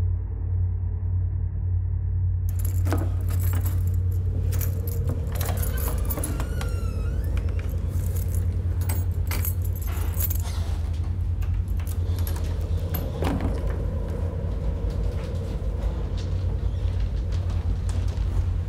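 A bunch of keys jangling and clicking at a door for several seconds, with a brief squeak partway through and another click later, over a steady low rumble.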